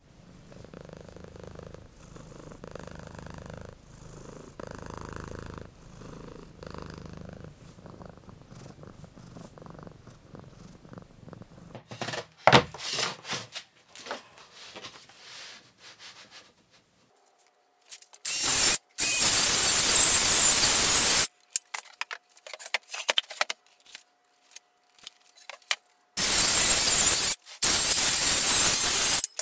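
A cat purring steadily in soft, even pulses for about the first ten seconds. Then a few knocks of boards being set down, followed by a DeWalt cordless circular saw cutting sheet board twice, each cut about three seconds long, the second near the end.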